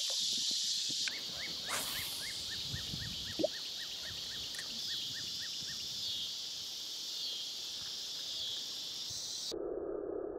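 A steady, high-pitched chorus of insects. From about a second in, a rapid run of short falling chirps comes at about six a second for roughly four seconds, with a brief knock about three and a half seconds in. Near the end the high chorus cuts out suddenly and a low steady hum takes its place.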